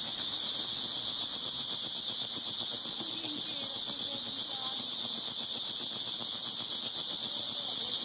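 Dense chorus of many caged singing insects in small woven bamboo ball cages. Their shrill songs run together into one loud, continuous, high-pitched buzz with a fast pulse.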